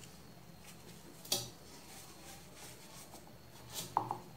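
Hands squeezing and crumbling packed baking soda in a bowl of loose powder: a faint soft crunching, with two sharper clicks, one about a second in and one near the end.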